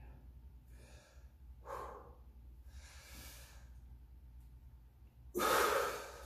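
A man breathing hard while posing: a few short breaths, then a loud, forceful exhale about five seconds in as he tenses his abs and thighs into a hands-behind-head pose.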